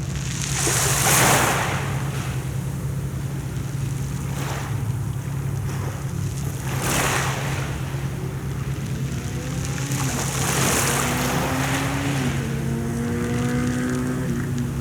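Sea waves breaking and washing ashore in swells every few seconds, over a steady low rumble. A little past the middle, a motor's drone joins in, its pitch shifting up and down.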